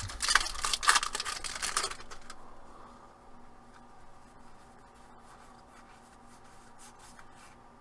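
Trading-card pack being handled and opened: a couple of seconds of crinkling and rustling with sharp crackles, then quieter sliding and flicking of cards with faint clicks over a low steady hum.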